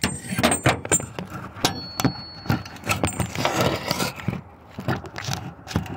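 Handling noise from a phone being set up and propped in place: a hand rubbing and knocking against the phone right at its microphone, with irregular clicks, scrapes and light metallic jingling.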